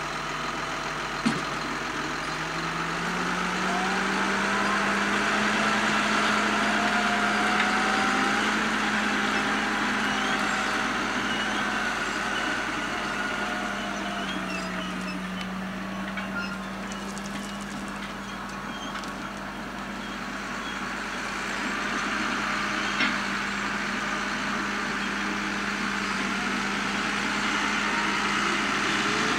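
Large tractor's diesel engine running steadily under load. Its note rises a couple of seconds in as the tractor pulls away towing the harrow-roller combination, then holds. A short knock comes about a second in.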